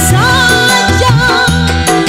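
Live dangdut band music with a woman singing into a microphone, holding one long, wavering note over the band.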